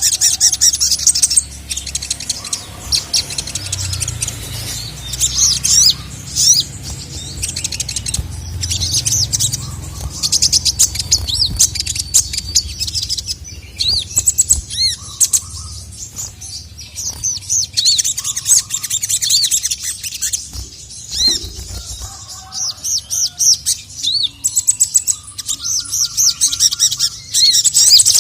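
Sogon (sogok ontong) songbird singing hard and without let-up: rapid high-pitched chirps, trills and arching whistled notes, broken by a couple of short pauses, over a low steady hum.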